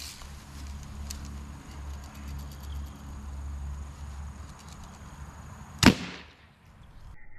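Daisy Red Ryder lever-action BB gun firing one shot about six seconds in, a single sharp crack with a short tail. Before it, wind rumbles on the microphone and there is a click at the start.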